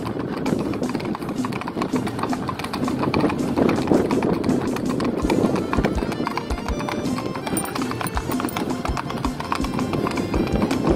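Hoofbeats of a Mangalarga Marchador horse travelling in its four-beat marching gait on a paved street, a quick even clip-clop, with music playing over it.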